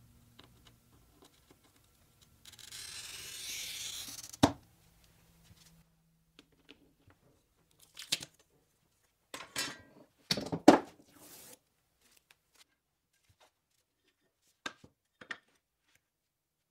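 A glass cutter's wheel scoring a line across a glass pane along a metal ruler: a gritty hiss of under two seconds that ends in a sharp click. Several knocks and clatter follow, the loudest about ten seconds in, as the ruler and the glass are handled and set down.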